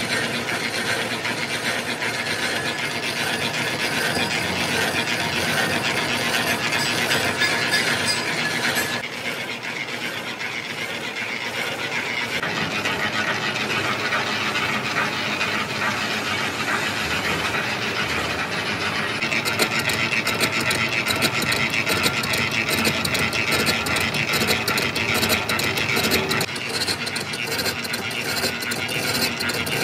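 Large manual lathe running with its tool bit facing the hub of a spoked gear blank: a steady metal-cutting scrape over the rattle of the lathe's gearing. The sound eases a little about a third of the way in, and a fine rapid clicking grows stronger in the last third.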